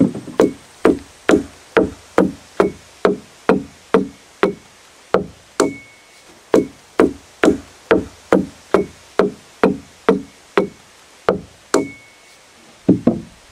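Hand adze chopping into the hollowed wood of a poplar dugout canoe in steady strokes, about two a second. Near the end comes a quick flurry of several closer blows.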